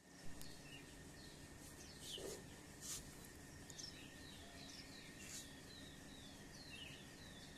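Small birds chirping: many short, falling chirps, some in quick runs of three or four, over a faint steady hum, with a few brief clicks.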